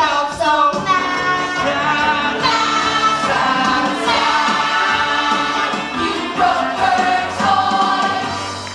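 Musical-theatre song sung by a group of voices with instrumental accompaniment, ending on held notes that fade near the end.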